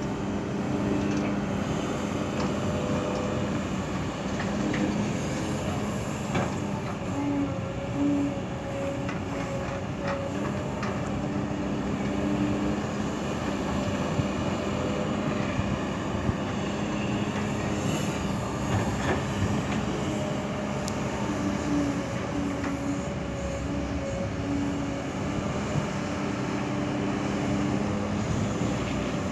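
Heavy diesel machinery, an excavator and a dump truck, running at work: a steady drone with a tone that comes and goes, and a few faint clanks.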